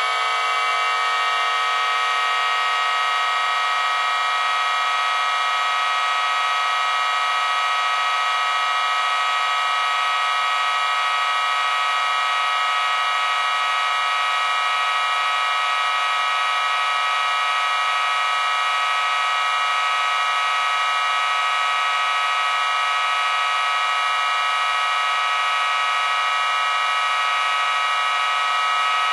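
Six miniature dual-tone Snowcube sirens running together, their many port tones clashing into one dense, steady chord. Their pitch finishes rising about a second in as the choppers reach full speed, then holds level.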